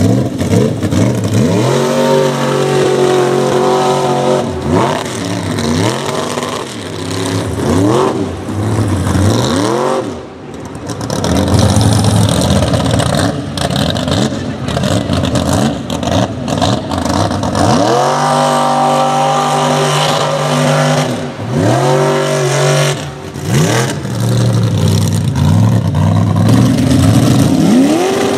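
A Chevy mega truck's engine is revved hard again and again as it drives through mud, its pitch climbing and falling with each burst of throttle. About two-thirds of the way through it holds high revs for several seconds.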